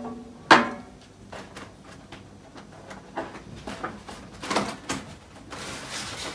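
A round tin box set down on a side table with a ringing clank about half a second in, followed by scattered light knocks and a rustle near the end as items are handled.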